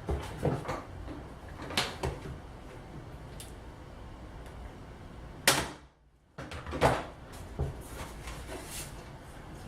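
Harbor Freight electric stapler-nailer firing nails into a particle-board drawer front: a string of sharp, irregularly spaced clacks, the loudest about five and a half seconds in.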